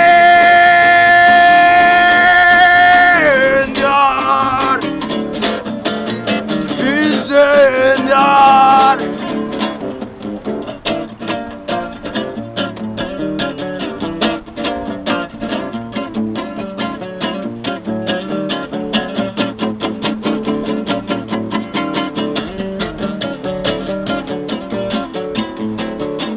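Acoustic guitar strummed steadily under a long wordless sung note that is held, then bends down and wavers, ending about nine seconds in; the guitar strumming then carries on alone, somewhat quieter.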